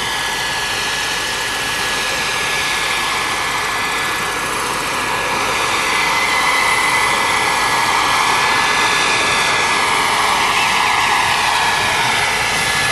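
Turbine-powered radio-controlled scale model Bell 412 helicopter flying: a steady high turbine whine over the rotor's rushing noise. It grows a little louder about six seconds in.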